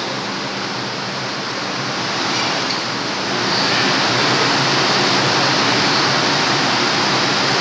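R142 subway train idling at the platform with its doors open: a steady rushing noise over a low hum, growing louder about three and a half seconds in.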